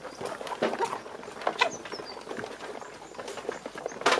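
A flock of Kuroiler chickens pecking at feed: an irregular patter of quick taps and clicks, with one sharper, louder click near the end.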